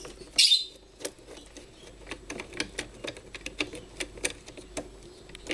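Screwdriver unscrewing the inlet-flange screws of a Hitachi automatic water pump's housing: a run of small, irregular clicks and ticks as the tip works in the screw heads, with a short loud hiss about half a second in.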